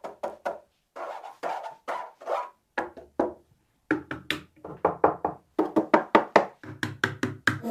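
Soundbar playing a quiet percussive passage of music: a series of short knock-like notes, each ringing briefly, sparse at first and then quickening to about four a second, with deep bass hits joining near the end.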